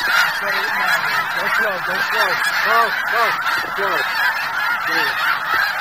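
A large flock of snow geese honking, a dense unbroken chorus of many overlapping short calls.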